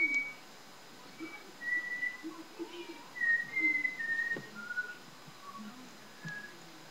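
A woman whistling a tune: a run of clear, held single notes that step mostly downward in pitch across a few seconds, with short gaps between them.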